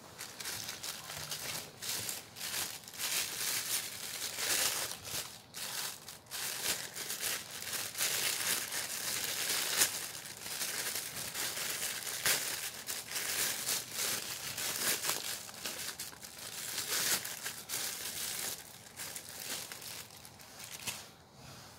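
Plastic courier mailer bag crinkling as it is handled and torn open, a continuous crackle with many sharp ticks.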